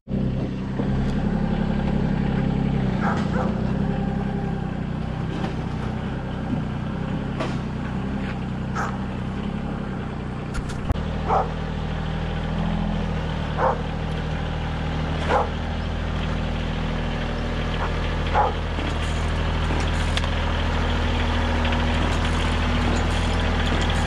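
Mahindra 4010 HST compact tractor's diesel engine running steadily as it works with its front loader, the low engine note shifting about halfway through. Short, sharp, higher-pitched sounds come every couple of seconds over it.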